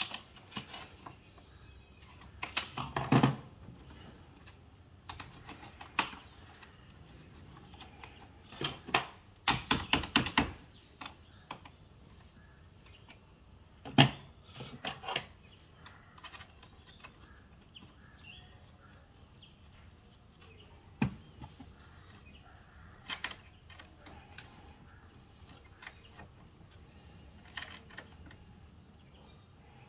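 Irregular metallic clicks and clanks of hand tools working the clamps and terminals of a car battery. There is a cluster of knocks about three seconds in and a quick run of clicks about ten seconds in.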